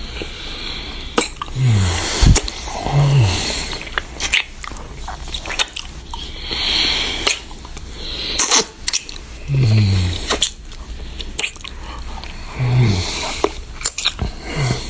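Kissing sounds: repeated wet lip smacks and smooching, with a few short, low hums that drop in pitch.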